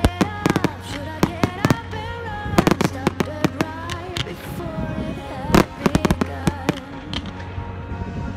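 Fireworks going off in a display: a rapid, irregular run of sharp bangs and crackles, with the densest bursts about two and a half seconds in and again around five and a half seconds. Music with a melody plays underneath.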